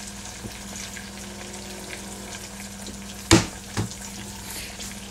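Butter and cheese cubes sizzling faintly in a small stainless saucepan on a low electric burner, over a steady low hum. Two sharp knocks about half a second apart come a little over three seconds in.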